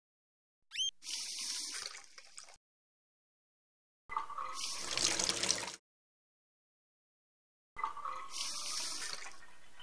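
Water running from a kitchen tap into a sink, heard in three separate bursts of a second or two each with silence between them, the first opening with a brief rising squeak.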